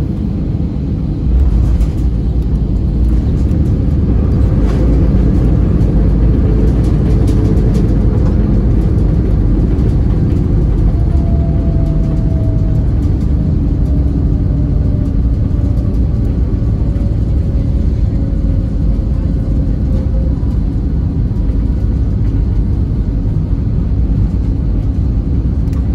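Airbus A320neo landing rollout heard from inside the cabin: a loud, steady rumble from the Pratt & Whitney PW1100G geared turbofans and the wheels on the runway. It swells sharply about a second in, and through the middle a faint engine tone slowly falls in pitch.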